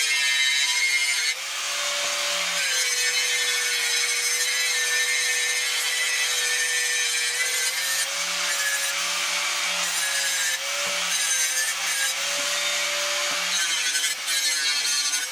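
Angle grinder grinding steel, cleaning the edges back to bare metal ready for welding. A steady motor whine runs under a dense grinding hiss, the whine rising a little whenever the disc is eased off the work, a few times.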